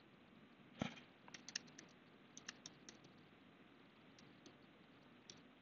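Faint typing on a computer keyboard: a handful of scattered keystrokes, the loudest about a second in, thinning out to a few taps near the end.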